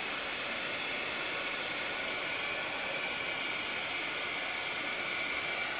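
Handheld craft heat tool running, blowing a steady hiss with a faint high whine as it dries a water-spritzed paper tag.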